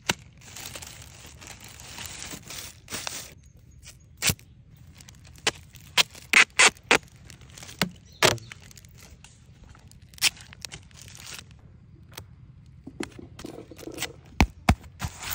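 A clear plastic bag crinkling and rustling as it is twisted, then adhesive tape being pulled off its roll and wrapped around a bundle, with a run of short sharp rips and clicks.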